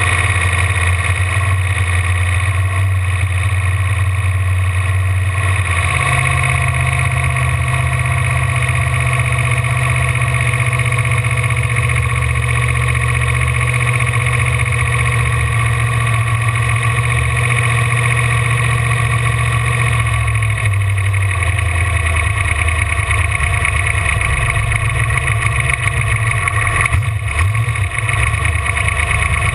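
Ford V8 engine of a V-drive boat running steadily and loudly, its speed rising about six seconds in and easing back down around twenty seconds in.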